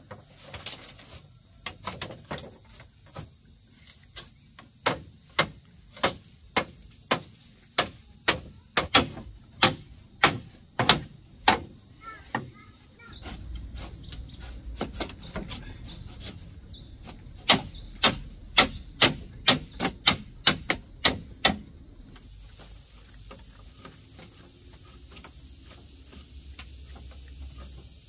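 Insects, crickets by the sound, trilling in one steady high tone, under two runs of sharp knocks at about two a second: a hand tool striking something over and over, as in hammering.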